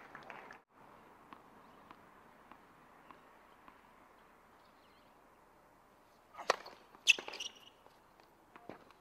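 Tennis racket striking the ball: two sharp hits about half a second apart, a serve and the return, the second louder with a brief ring.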